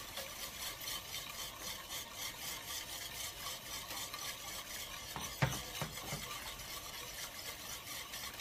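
Wire whisk stirring a thick mixture of mashed ube (purple yam) and milk in a stainless steel pan, a rhythmic scraping and swishing. Two or three sharper knocks of the whisk against the pan come a little past halfway.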